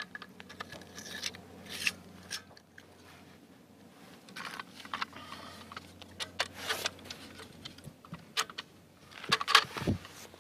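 AR-15 rifle parts being handled and fitted back together by hand: scattered light metal clicks and scrapes, with a cluster of sharper clicks near the end.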